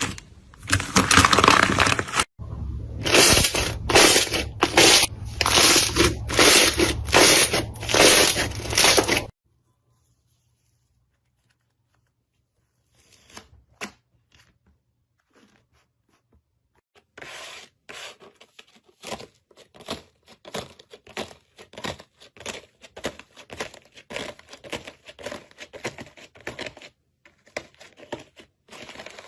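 Slime being squeezed and worked by hand, crackling and popping in a run of repeated strokes about one and a half a second. About a third of the way in it stops for several seconds, then resumes with quieter, quicker crackles.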